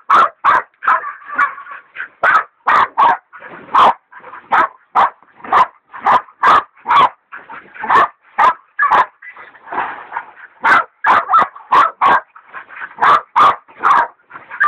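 Hog dogs, one a Catahoula leopard dog, baying a cornered sow hog: loud, rapid, continuous barking at about two to three barks a second.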